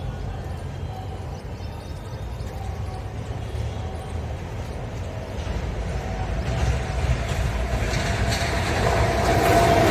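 An approaching passenger train rumbling, growing steadily louder over the second half, with a thin steady tone coming in near the end as it nears.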